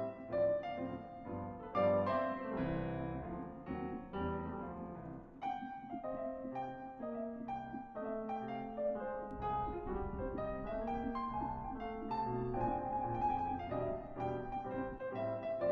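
Background music: solo piano playing a gentle melody with chords, note after note.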